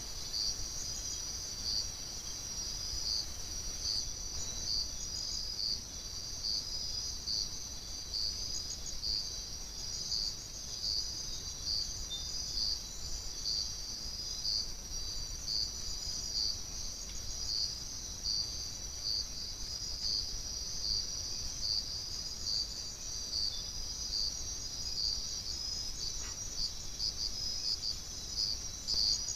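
Night chorus of forest insects, crickets or katydids: a steady high-pitched trill with a pulsing chirp repeating a little under twice a second.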